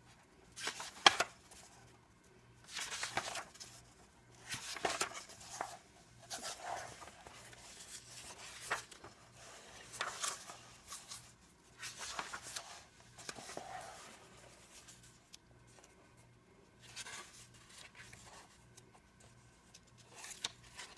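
Medium-weight paper pages of a glue-bound coloring book being turned and smoothed flat by hand: a string of faint, uneven rustles and swishes, with a sharper slap of paper about a second in.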